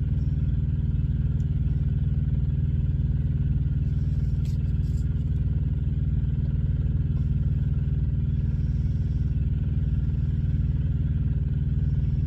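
Truck engine idling: a steady, even low hum that holds one pitch throughout.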